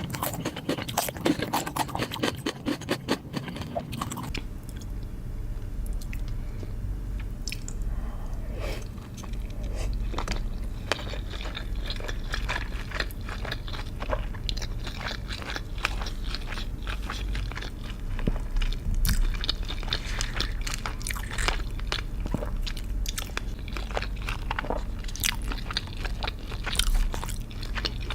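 Close-miked eating: crisp, crunchy bites, as of fried chicken skin, for about the first four seconds, then softer, wetter chewing with scattered crunches. A low steady hum lies under it.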